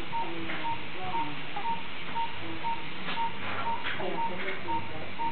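Hospital bedside monitor beeping, one short high beep about twice a second in a steady rhythm, the pulse-tone of a heart-rate monitor.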